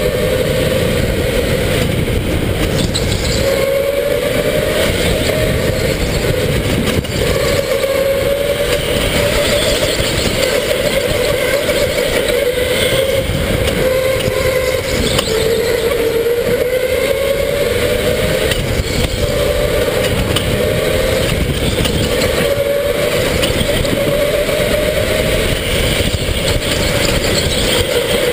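Electric indoor go-kart's motor whining under way, the pitch climbing on each straight and falling back into the corners several times over, with a steady rushing noise underneath.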